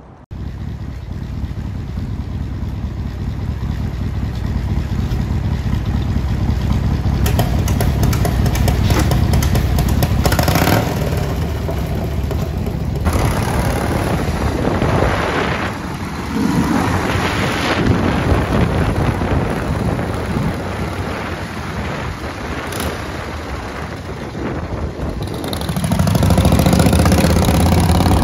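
1970 Harley-Davidson Shovelhead's 74-cubic-inch V-twin engine running as the motorcycle is ridden. It rises and falls with the throttle and gets louder near the end.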